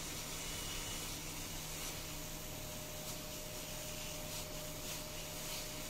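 SMD hot air rework station blowing a steady hiss of hot air from its nozzle onto a motherboard that has been fluxed, with a faint steady hum underneath.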